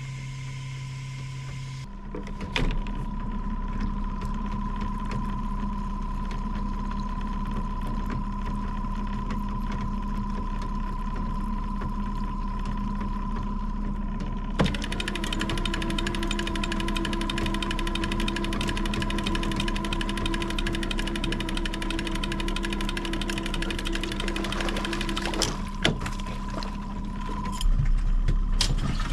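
A boat motor running steadily at trolling speed, with a few sharp knocks on the boat.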